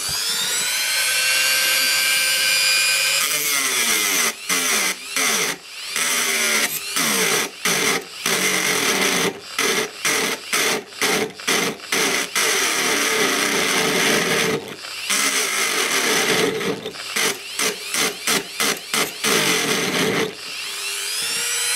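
Dremel-type rotary tool with a thin cut-off disc cutting into the metal frame of a small circuit breaker. Its high whine rises as the motor spins up over the first few seconds. Then it grinds on and off, the sound dropping out for a moment many times as the disc is pressed in and eased off the metal.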